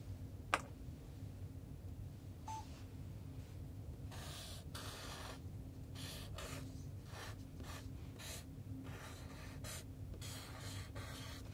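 Black Sharpie marker writing letters on paper: a run of short strokes of the felt tip across the sheet, after a single click about half a second in.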